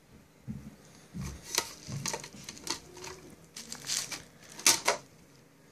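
Keys on a custom mechanical keyboard being pressed: a dozen or so irregular clicks and clacks over about four and a half seconds, the loudest near the end.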